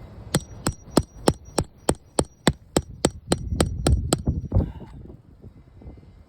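A hammer striking a steel roofing pry tool about fourteen times in an even rhythm, roughly three blows a second, each blow with a short metallic ring, as it drives the tool under a shingle nail to pull it. A softer knock follows near the end.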